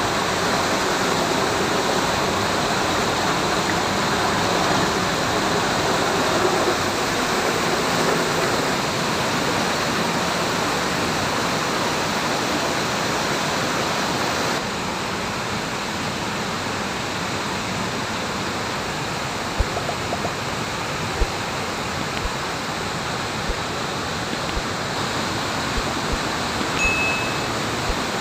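Thirparappu waterfall in rain-season flow: a steady, even rush of falling water. It drops slightly in level about halfway through, with a few faint low thumps after that.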